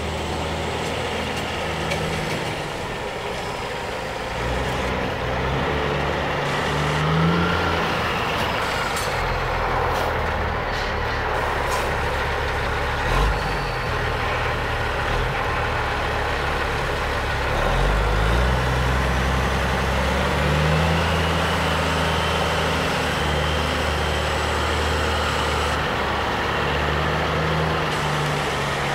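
Diesel engine of a 2007 Peterbilt 386 tractor with no trailer, running as the tractor drives. The engine speed rises and falls several times, and there is a brief louder thump a little before the middle.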